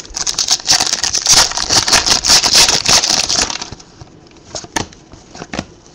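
Trading-card packs and cards being handled: dense crinkling and crackling of wrapper and sliding cards for about three and a half seconds, then a few sparse clicks as cards are flipped.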